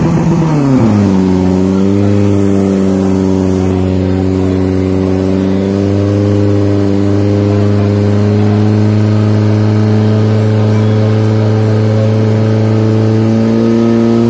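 Portable fire pump's engine running at high revs; its pitch drops sharply about a second in, then holds steady with a slight rise near the end as it pumps water to the attack hose lines.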